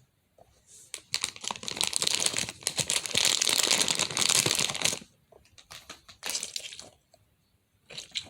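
Crinkling, rustling handling noise: a dense run of crackling for about four seconds, then a few shorter rustles.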